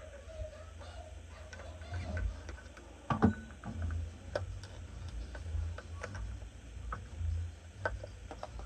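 Scattered light clicks and knocks of metal parts and hand tools being handled while screws are fitted, with one louder knock about three seconds in.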